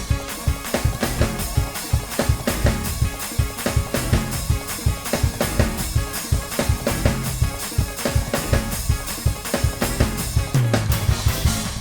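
Gospel praise break: a drum kit played fast and hard, with rapid snare and bass drum hits, over sustained keyboard chords and bass notes. It opens on a loud accent hit.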